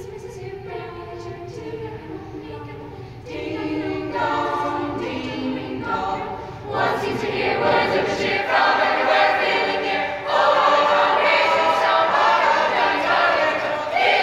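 Mixed youth choir of girls' and boys' voices singing a cappella, growing louder in steps about 3, 7 and 10 seconds in.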